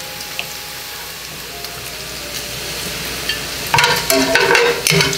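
Bacon sizzling in its own fat in a cast-iron skillet, a steady hiss. About three and a half seconds in, metal tongs start clattering and scraping against the pan as the bacon is turned, much louder than the sizzle.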